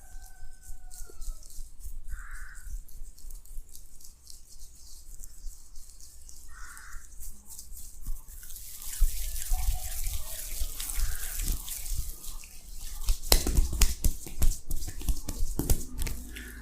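Close-miked hand massage: soft scattered rubbing clicks, turning about halfway through into a dense, louder crackly rubbing of hands working over skin and hair.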